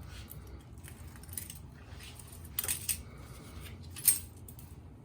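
Cracked glass touch-screen digitizer being pried off a car navigation unit, with scattered small clinks and clicks of glass and tools: a cluster about two and a half seconds in and one sharp, louder clink about four seconds in, over a steady low hum.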